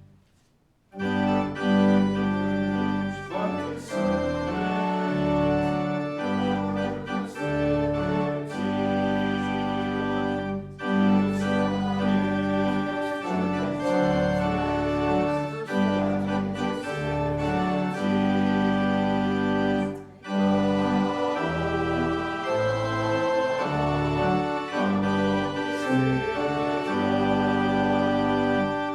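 Church organ playing held chords in slow succession, a hymn or interlude. It comes in about a second in after a brief pause, with a short break about twenty seconds in.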